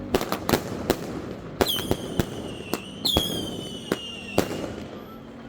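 Fireworks going off at close range: a rapid, irregular series of sharp bangs, with two long high whistles that slowly fall in pitch, starting about a second and a half in and about three seconds in.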